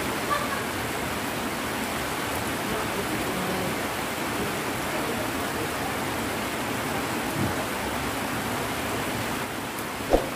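Heavy rain falling steadily, an even dense hiss, with one sharp knock near the end.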